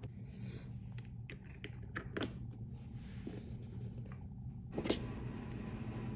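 Plastic popsicle stick caps clicking into place as they are pressed into a popsicle mold: a few light, sharp clicks in the first couple of seconds, then one louder knock near five seconds, over a steady low hum.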